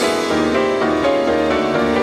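Two grand pianos played together in concert: a dense stream of notes across the keyboard.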